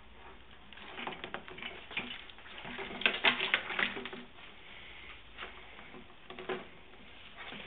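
A land crab scrabbling inside a covered pot on the stove. Its claws and legs click and scrape against the metal pot and lid in quick, irregular rattles that are busiest about three seconds in, then thin out to a few separate taps.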